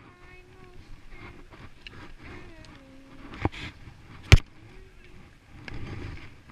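Skis sliding and scraping over packed snow on a downhill run, with faint wavering tones in the first half. Two sharp knocks come a little under a second apart midway through, the second the loudest, and a rougher swell of scraping comes near the end.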